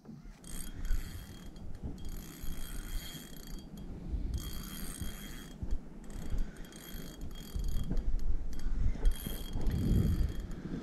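Spinning fishing reel being cranked in several bursts of a second or two each, a geared whir with a steady thin whine.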